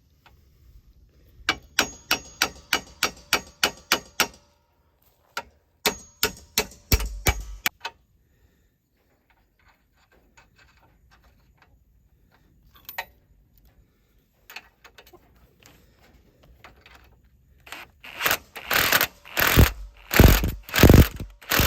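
Ratchet wrench clicking in two short runs of rapid, even clicks while bolts on a trailer hitch coupler are tightened, followed near the end by several louder, heavier metal strokes.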